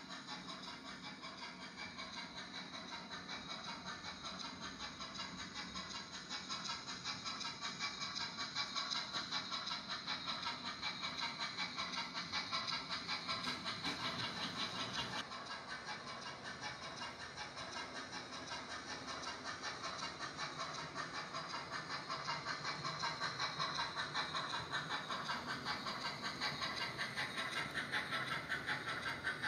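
OO gauge model freight train of small open wagons running along the track, with a fast, even rhythmic clatter of wheels on the rails. It grows louder as the train comes closer, dips briefly about halfway through, then rises again.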